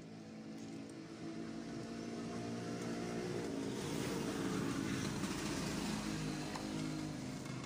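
A motor vehicle passing by: its engine and road noise swell to their loudest around the middle and fade again toward the end.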